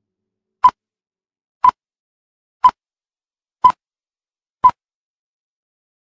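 Film-leader countdown: five short, identical beeps, one each second, counting down, with silence between them.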